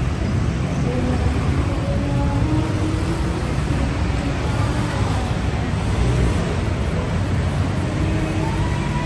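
Steady city street traffic: vehicle engines running with a continuous low rumble.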